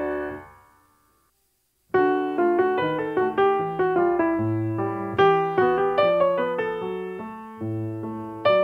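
Background piano music: a note rings and dies away, then after a short silence a steady run of single piano notes starts up again at about two seconds in.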